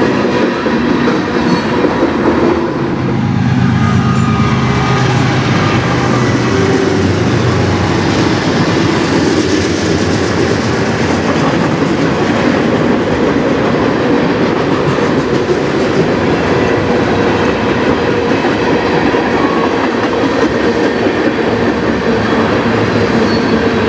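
Canadian National freight train passing: the steady, loud noise of its cars' steel wheels running on the rails.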